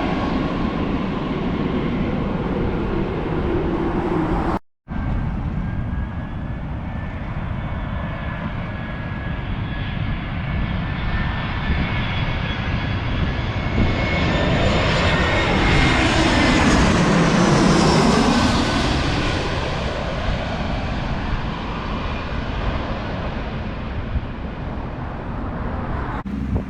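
Jet airliner on final approach passing low overhead, its engine whine and roar building to the loudest point about two-thirds of the way through, the whine dropping in pitch as it goes by. Wind buffets the microphone throughout.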